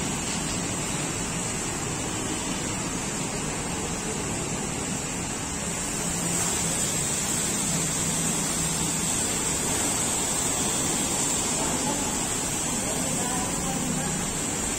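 High-pressure water jet from a car-wash hose spraying onto the metal body of a jeep: a steady hiss of water that gets a little louder about six seconds in.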